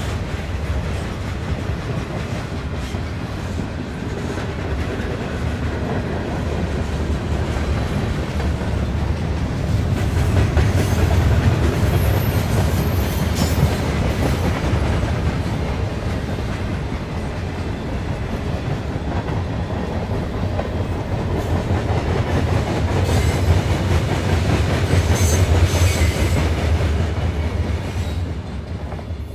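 Two steam locomotives, the 2-6-0 No. 89 and the 2-10-0 No. 90, double-heading a freight train past under steam, with the cars' wheels clicking over the rail joints. It swells twice as the engines and cars come by, then fades near the end.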